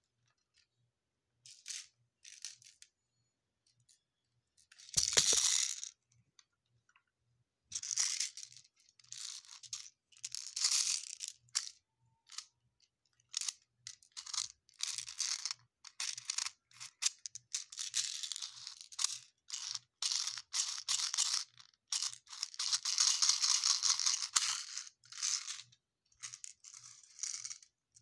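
A clear plastic bag of airsoft BBs being handled: crinkling plastic and rattling BBs in irregular bursts, with a knock about five seconds in and the densest stretch near the end.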